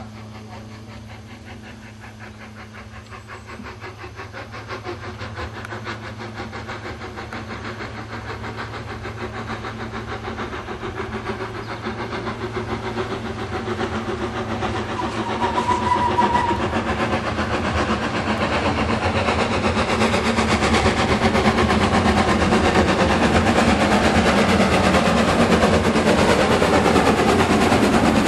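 Gresley V2 2-6-2 steam locomotive 4771 'Green Arrow', a three-cylinder engine, approaching under steam, its rapid exhaust beats growing steadily louder as it draws near. A short high note sounds about halfway through.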